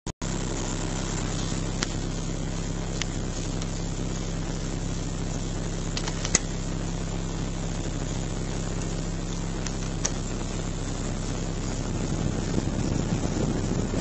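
Lada Kalina engine idling steadily, heard from inside the cabin, with a few sharp clicks from the heater fan-speed switch. From about 12 seconds in, the rush of air from the heater blower through the dashboard vents builds over the engine.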